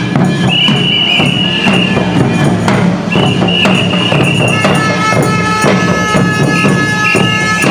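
Music with long, high held notes over rattling, tambourine-like percussion; in the second half several high notes sound together.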